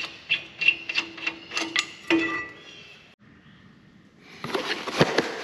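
Hand ratchet wrench clicking in quick strokes, about four or five clicks a second, stopping after about two seconds; rustling handling noise starts near the end.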